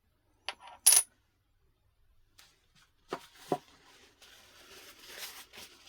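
Handling noises: a short sharp hiss-like click about a second in, two small clicks a little after three seconds, then a soft rustling near the end.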